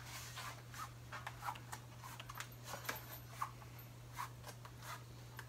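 New 26 x 1.75 Sunlite whitewall bicycle tire being worked onto its rim by hand: faint, scattered short rubbing sounds of the rubber bead against the rim, over a steady low hum.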